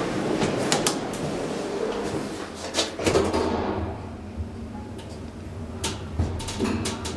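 Elevator door shutting with a clatter about three seconds in, after which the surrounding hiss falls away. A low steady hum follows, broken by several sharp clicks, typical of a hydraulic elevator cab setting off.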